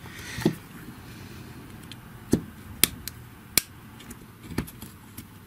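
A few small, sharp clicks and taps, about five spread irregularly, from the hard plastic plate assembly of a GHD hair straightener being handled and worked at with a small tool.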